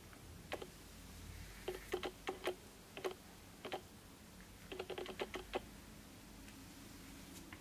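Light, sharp clicks and taps coming a few at a time in irregular clusters, over a faint low hum.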